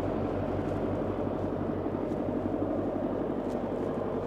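International 785 tractor's diesel engine running as the tractor is driven along: a steady drone with an even low pulse.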